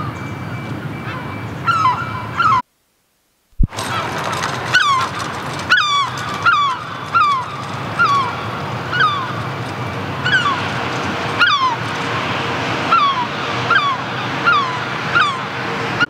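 Herring gull calling a long run of downslurred yelping notes, roughly one or two a second, over a steady low background rumble. The sound cuts out completely for about a second near the three-second mark.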